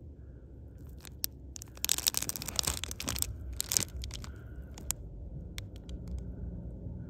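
Rustling, crinkling handling noise with scattered clicks. It is loudest for about a second and a half starting about two seconds in, over a low steady rumble.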